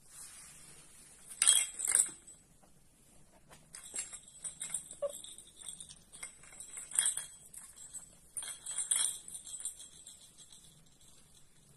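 Small metal pieces jingling and clinking in quick, irregular strokes, loudest about a second and a half in and again near the middle and toward the end.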